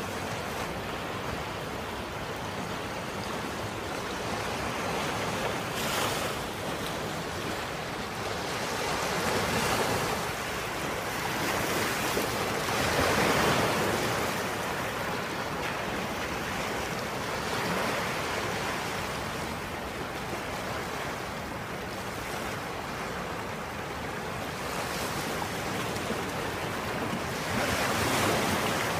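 Small waves washing onto a sandy beach: a steady rush of surf that swells and fades every few seconds.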